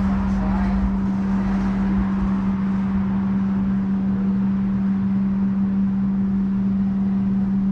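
A steady machine hum: one constant low tone over an even rumble, unchanging throughout.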